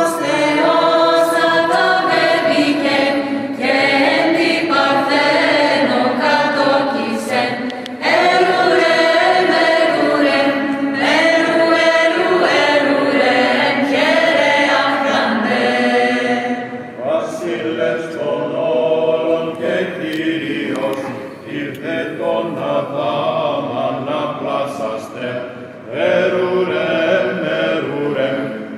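Mixed choir singing a Greek Byzantine carol unaccompanied, in antiphonal style, phrase after phrase. Women's voices sing at the start and men's voices near the end; the singing drops in level past the middle and swells again near the end.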